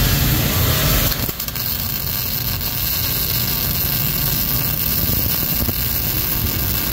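Wire-feed (MIG) welding arc crackling and sizzling steadily as a fillet weld bead is laid along a steel joint, starting about a second in. Before it, a loud steady rushing noise.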